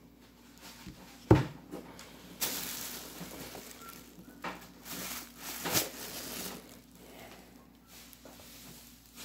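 Plastic takeout packaging being handled: a sharp knock about a second in, then crinkling and rustling of plastic in several spells, the plastic wrap and clear clamshell lids being moved.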